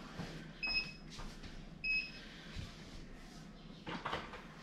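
Two short electronic beeps from a treadmill's control console, a little over a second apart, with light knocks and handling noise around them.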